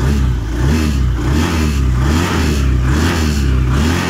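Honda Vario 110 scooter's single-cylinder fuel-injected engine running and being revved in repeated throttle blips, its pitch rising and falling about once a second. It is running normally, though its engine light had been blinking and the ECU holds a stored fault code 52 for the crankshaft position (CKP) sensor.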